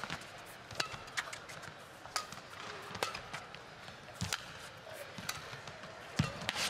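Badminton rally: racket strings striking the shuttlecock with sharp cracks about once a second, with the thuds of players' lunging footwork on the court.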